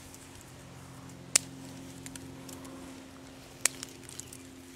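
Pruning shears snipping rosemary stems, two sharp clicks about two seconds apart, with some faint rustling of the foliage. A steady low hum runs underneath.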